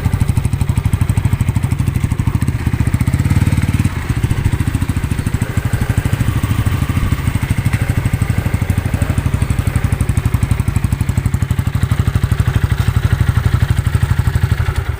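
Yamaha Y15ZR motorcycle's single-cylinder engine, rebuilt with a 65 mm big-bore block, idling with a steady, even exhaust beat. It swells slightly for about a second around three seconds in.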